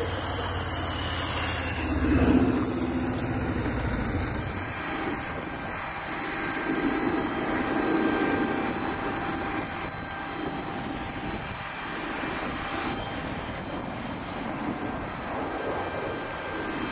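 Jet airliner engines running: a steady rushing rumble with a faint high whine, louder about two seconds in. After a few seconds it is the four engines of an Airbus A380 on final approach.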